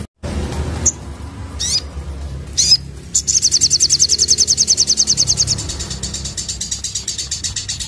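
A sogon sunbird singing: three short, high, separate chirps, then about three seconds in a fast, even rattling trill of about ten notes a second, the rapid-fire 'nembak' song. The trill is loudest for its first two seconds and carries on more softly, over a steady low rumble.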